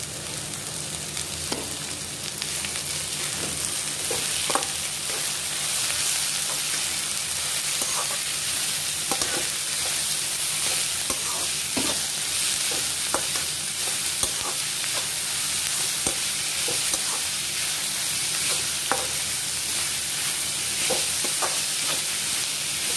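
Chopped vegetables sizzling in hot oil in a kadhai while being stir-fried with a slotted steel spatula. The steady sizzle is broken by frequent short scrapes and taps of the spatula against the pan.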